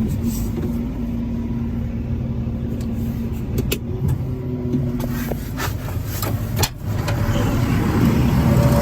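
Caterpillar 730 articulated dump truck's diesel engine running steadily, with a few sharp clicks and knocks in the middle. The engine grows louder near the end.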